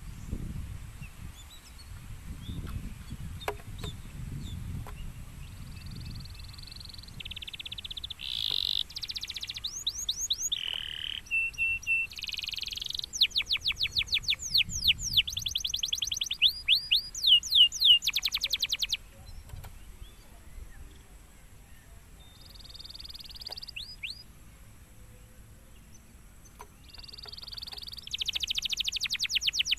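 Domestic canary singing: phrases of fast trills and rolls of rapidly repeated, rising notes, loudest in the middle. The song drops to a lull for several seconds and comes back strongly near the end, and a faint low rumble sits under the opening seconds.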